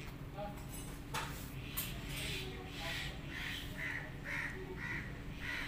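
A crow cawing over and over, about two harsh caws a second, starting about two seconds in. Two sharp clicks come just before.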